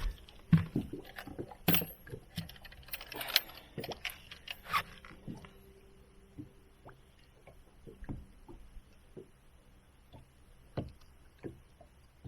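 Handling clatter in a small fishing boat: clicks, knocks and rattles as a fishing scale is picked up and a freshly caught bass is hooked on to be weighed. The knocks come thick and loud for about the first five seconds, then thin out to a few scattered taps.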